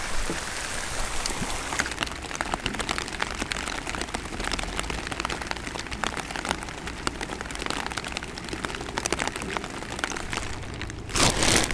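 Steady rain falling on a pond, a hiss dotted with many separate drops ticking close by. Near the end a sudden, louder rustling starts.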